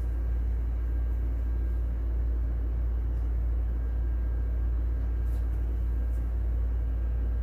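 Steady low droning hum, with a few faint, light rustles as clothes are dropped into the water-filled tub of a small twin-tub washer.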